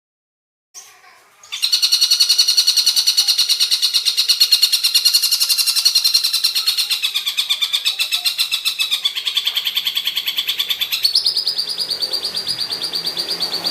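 Tengkek buto calling: a long, rapid, harsh trill of evenly repeated notes, stepping up in pitch near the end and cutting off suddenly.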